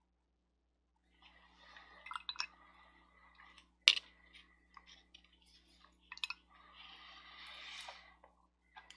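Small handling noises from a plastic miniature painting handle being turned in the fingers: scattered light clicks and soft rubbing, with one sharper click about four seconds in.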